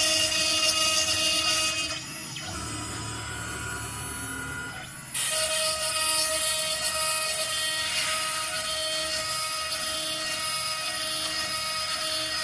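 CNC router spindle running with a steady high whine while its bit cuts a wooden board. The sound is louder for the first two seconds, drops back, then comes in loud again suddenly about five seconds in.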